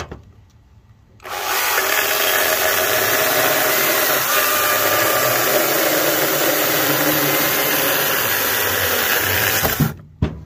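Greenworks GS110 battery-powered top-handle chainsaw starting up about a second in and running steadily through a log cut, then stopping abruptly near the end.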